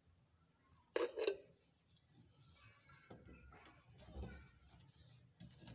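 Two sharp metallic clinks in quick succession about a second in, like metal striking metal with a short ring.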